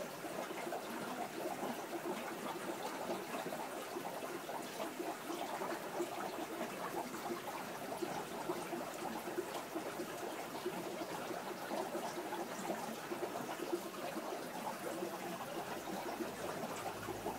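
Aquarium water trickling steadily, a continuous fine splashing and bubbling.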